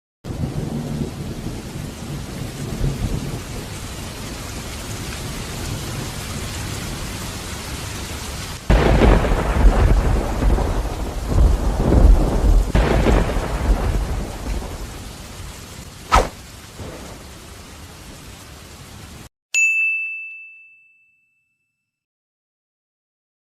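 Thunderstorm: steady rain, then a long loud rumble of thunder and a sharp crack a couple of seconds later, before the sound cuts off abruptly. A single bell-like ding rings out and fades near the end.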